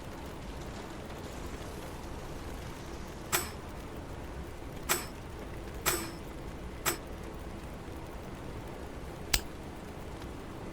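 Five sharp knocks at uneven intervals over a steady low background noise, the last one the loudest.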